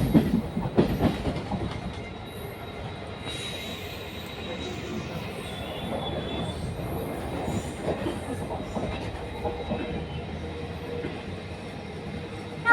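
ICF passenger coaches' wheels running over rail joints: loud clattering knocks in the first second or so, then a steadier, quieter rumble with a faint thin wheel squeal now and then.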